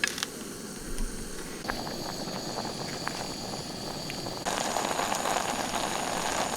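Steady hiss of a gas burner heating a pot of water toward the boil; the sound changes abruptly twice, about a second and a half in and again past the middle.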